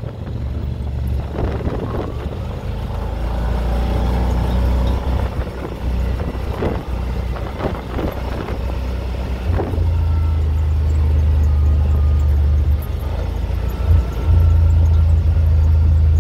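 Vehicle engine running with a steady low hum while driving slowly over a rough dirt track, heard from inside the cab, with knocks and rattles from bumps in the first ten seconds. The hum gets louder about fourteen seconds in.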